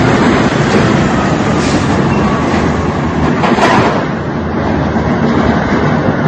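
Steady loud rumble of tanks and armoured vehicles on a city street, with a brief louder burst of noise about three and a half seconds in.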